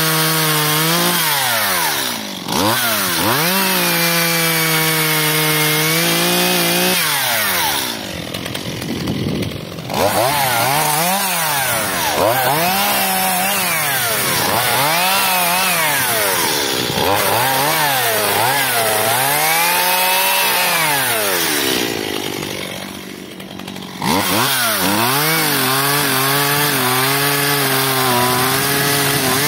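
Stihl MS 181 two-stroke chainsaw cutting birch logs, held at full throttle in the cuts and dropping back briefly between them. Through the middle it is revved up and down about half a dozen times, a rise and fall roughly every two seconds. The saw has a new carburettor and, in the owner's view, runs as it should.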